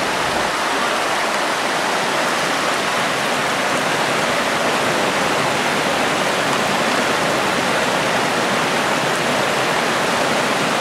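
Shallow creek water rushing and splashing over rocks, a steady rush.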